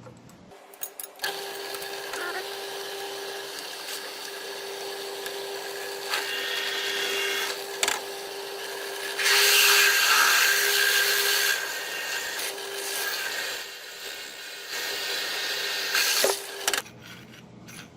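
Drill press motor running with a steady hum while a 9/16-inch bit cuts through an aluminum piece. The hum starts about a second in and stops shortly before the end, and the cutting noise grows harsher for a couple of seconds about halfway through.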